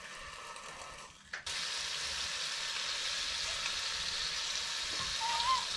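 Bacon frying in a pan on a gas stove: a steady sizzle that jumps up sharply about a second and a half in and then holds.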